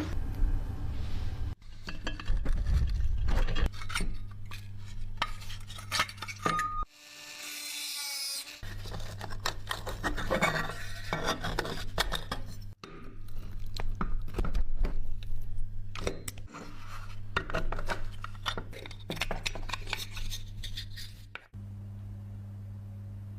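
Small metal parts clinking and being scraped during hand restoration work. Bursts of clicks and scraping are split into short segments that start and stop abruptly, over a steady low hum.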